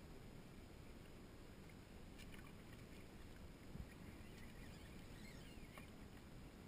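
Faint water lapping against a small boat's hull, with a couple of faint clicks and some faint high chirps near the middle.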